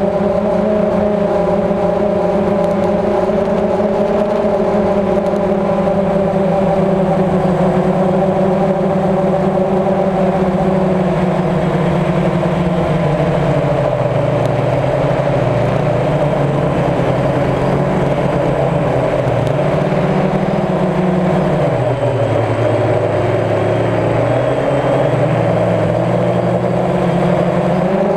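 DJI Phantom quadcopter's motors and propellers humming steadily, heard from its onboard camera. About halfway through the pitch drops and then wavers up and down as the throttle changes while the drone comes down low over a field.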